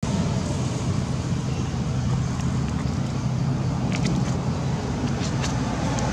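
Steady low engine rumble of motor vehicle traffic, with a few faint short high clicks about four and five and a half seconds in.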